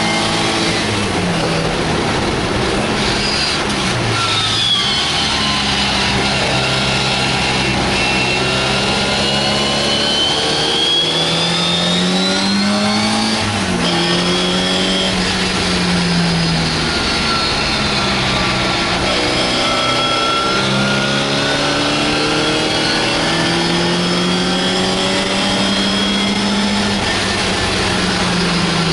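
An MGA's four-cylinder engine at full racing effort, heard from inside the open cockpit. The revs climb and fall repeatedly, with sudden drops about four, thirteen and twenty seconds in as it shifts and slows for corners.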